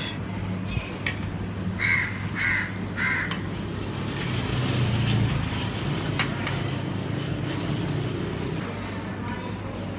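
A crow cawing three times in quick succession, about two seconds in, over a steady low hum. A low rumble swells and fades in the middle.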